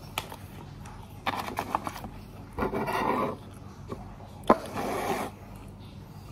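Eating noises at a bowl of noodles: a quick run of clicks about a second in, then two short scraping rushes, the second just after a single sharp click.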